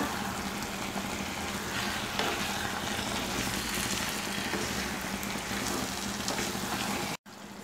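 Chicken pieces in masala sizzle in a nonstick kadai while a spatula stirs them: a steady frying sizzle that cuts off suddenly near the end.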